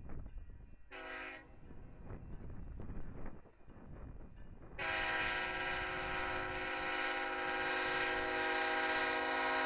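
Freight locomotive air horn: a short blast about a second in, then a long, loud blast from about five seconds in, over the low rumble of the passing train.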